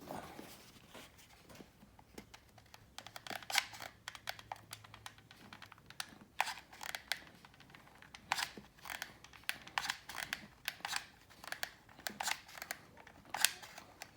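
Irregular clicking and scratching as a hot glue gun is worked and hot glue is spread over the top of a rubber mask. The clicks come in clusters from about three seconds in.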